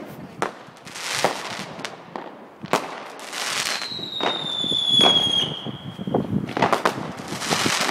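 Fireworks going off close by: a string of sharp bangs and hissing, crackling bursts, with a whistling firework about four seconds in whose whistle falls slowly in pitch.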